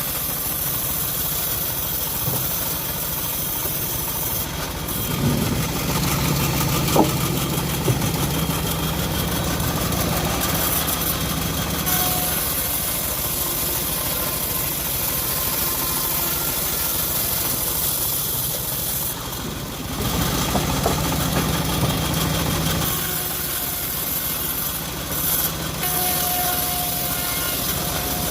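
Engine of a homemade band sawmill running steadily while the blade saws through teak. Twice a deeper hum strengthens for several seconds, then eases.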